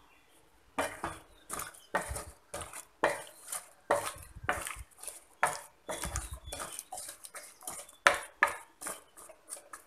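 Wooden spatula stirring raw cubed potatoes, spices and a little water in a ceramic-coated pan: quick scraping strokes, two or three a second, starting about a second in.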